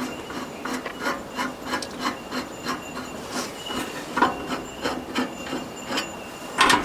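Hands working on a band sawmill's covers and blade guard to take them off for a blade change: an irregular run of small clicks, taps and scraping.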